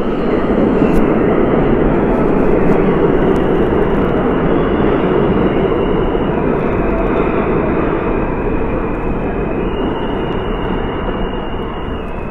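Subway train running past a station platform. It makes a loud, steady rumble that eases slowly, with faint high steady tones above it.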